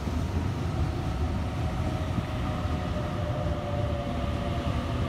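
Sydney Trains B-set Waratah electric train pulling out of the platform: a steady low rumble of wheels and running gear, with a faint whine of several held tones from the traction motors.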